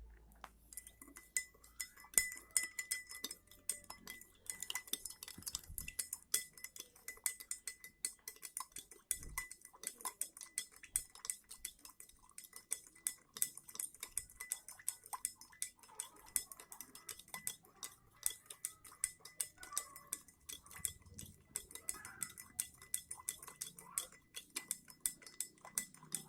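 A spoon stirring lime juice and sugar, clinking rapidly and continuously against the side of its container while the sugar is mixed in.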